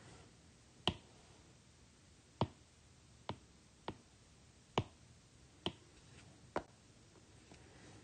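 Taps on a tablet's glass touchscreen while working a drawing app: about seven short, sharp clicks at uneven intervals.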